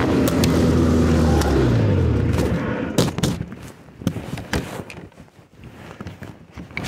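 Snowmobile engine slowing down, its pitch falling, then dropping away about three seconds in. After that, a run of sharp knocks and rustles close to the microphone as the camera is handled.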